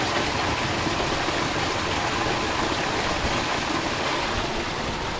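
Storm runoff pouring over a small waterfall of stones in an erosion gully, a steady rush of water.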